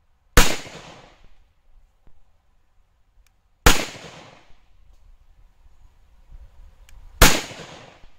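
Three pistol shots from a PSA Rock 5.7 firing 5.7x28mm rounds, evenly spaced about three and a half seconds apart, each with a short echoing tail.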